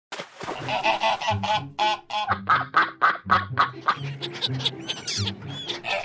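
A fast run of duck quacks, several calls a second, over background music.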